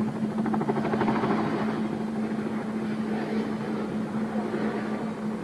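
Boeing Vertol CH-46 Sea Knight tandem-rotor helicopter flying low, its rotors beating rapidly over a steady hum.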